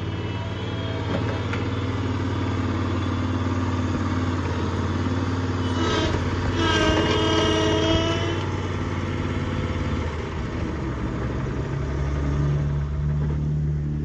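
Engine of a Terramite compact backhoe loader running steadily while the machine is driven. A louder wavering whine joins for about two seconds midway, and the engine note rises about two seconds before the end.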